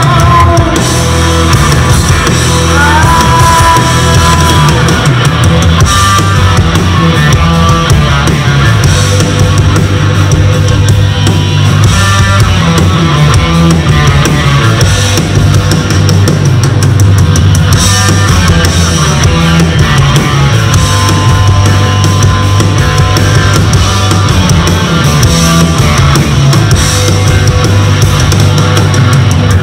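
A rock band playing live and loud on electric guitars, bass guitar and drum kit, with a bent lead-guitar note about three seconds in.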